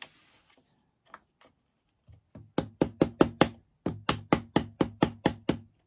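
A mallet knocking on a metal drift held against the pedal hinge of a Veteran Sherman S electric unicycle, driving the pedal rod back in until it sits flush. A few faint taps come first, then sharp knocks about four a second: five strikes, a brief pause, then about eight more.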